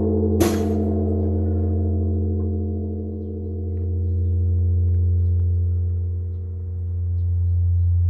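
Large Japanese bronze temple bell (bonshō) struck by a swinging wooden log about half a second in, then ringing on with a deep hum that swells and fades in slow waves, rung as the temple's morning bell to mark the start of the day.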